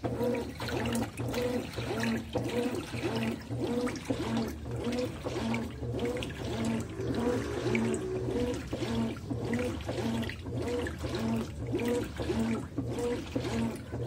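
Consul CWE13AB 13 kg top-load washing machine agitating a full tub of water and laundry at its level-4 agitation setting. Water sloshes and churns in a regular back-and-forth rhythm over the steady hum of the drive motor. The sound starts suddenly.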